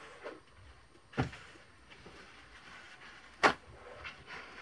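Handling noise while paper towels are fetched: two sharp knocks about two seconds apart, the second the louder, with light rustling between.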